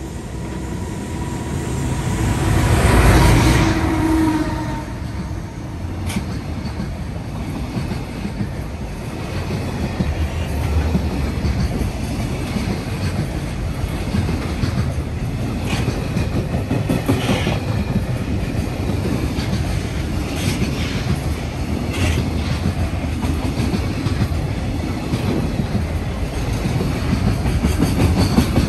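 A container freight train passing through at speed: the EF510 electric locomotive goes by loudest about three seconds in, then a long string of container wagons rolls past with a steady wheel rumble and clickety-clack over the rail joints. A few brief high-pitched squeaks from the wheels come through now and then.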